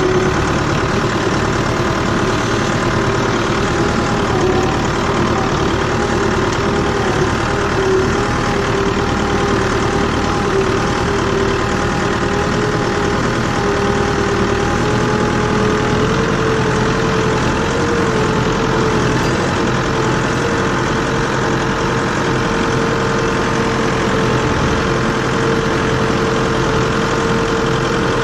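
Tractor engine running steadily at constant speed, with a steady whine over it that edges up slightly in pitch about halfway through.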